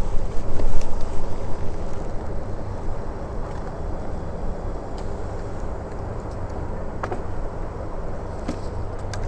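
The crane's engine running with a steady low rumble, louder for the first second or so, with a few faint clicks over it.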